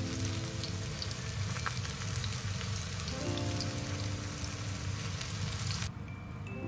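Kabocha squash slices coated with sliced almonds frying in shallow oil in a black frying pan, a steady sizzle with crackling while the pieces are turned. The sizzle cuts off suddenly near the end.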